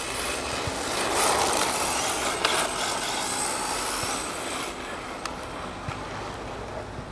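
A 1/10-scale RC rally car running over a gritty, gravel-strewn lot, giving a noisy hiss of tyres on loose grit. It swells about a second in as the car passes close, then gradually fades as it drives away.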